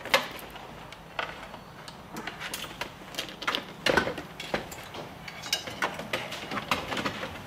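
Instrument cluster housing being slid back into a car dashboard: irregular clicks, knocks and rattles of the housing and its wiring being handled, with a sharp click at the start and a stronger knock about four seconds in.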